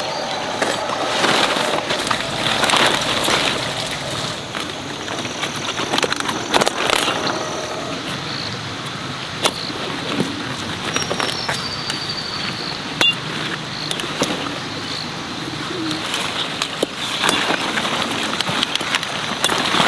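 Broccoli leaves rustling and stalks snapping and being cut as the plants are stripped and harvested by hand, with many sharp clicks. A bird calls a couple of times in the background.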